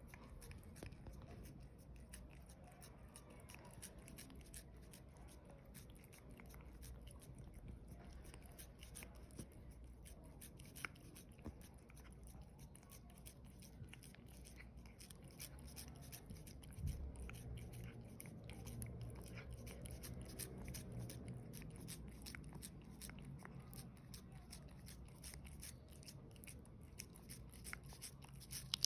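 Pet cat eating a treat: faint, irregular licking and chewing clicks, with a single soft bump about seventeen seconds in.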